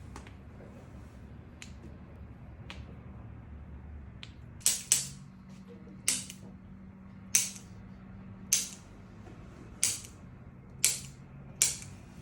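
Eight sharp clicks, each with a short ring, coming about once a second from about five seconds in. The first two fall in quick succession.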